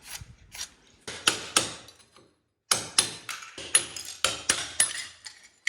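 Hammer striking a chisel to chip away fireplace masonry and tile, in a series of sharp blows: three, a brief pause, then about ten quicker strikes.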